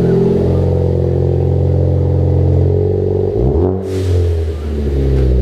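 Ford Focus ST's turbocharged engine running through a freshly fitted aftermarket catback exhaust, held at steady revs, then revved up and down a few times from about three seconds in.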